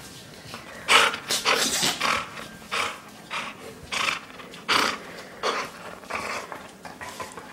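A dog making a series of short, breathy, noisy sounds close up, roughly one every half second to second, while mouthing and playing with a rubber ball toy.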